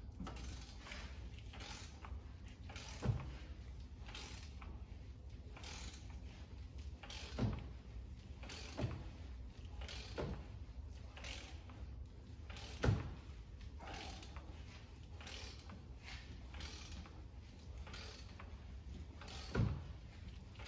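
Ratcheting torque wrench clicking as it winds the puller's forcing screw, drawing a diesel injector out of a Ford EcoBlue 2.0 engine now that the injector has broken free. About six louder sharp clicks stand out among fainter ones, over a low steady hum.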